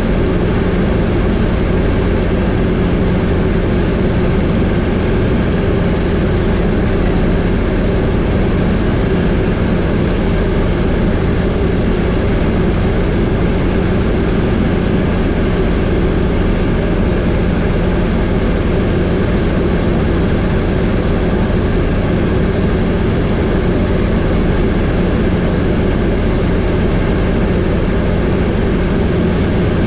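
Helicopter in flight: a steady drone of engine and rotor.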